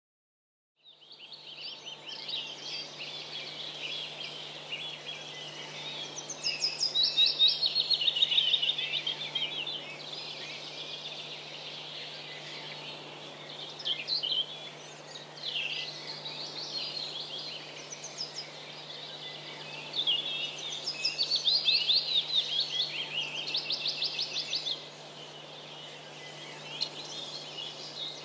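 Songbirds singing, with chirps and fast trilling runs that are loudest in two spells, over a faint steady low hum. The sound fades in about a second in.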